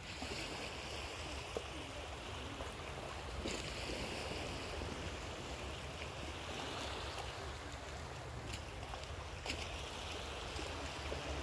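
Small waves lapping gently at the water's edge, with a low steady rumble beneath and a couple of faint clicks.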